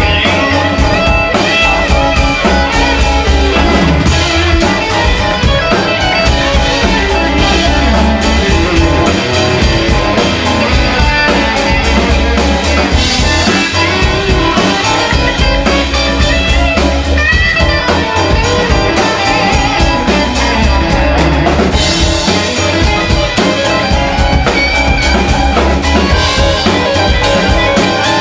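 Live band playing an instrumental break without singing: strummed guitar with drums and keyboard.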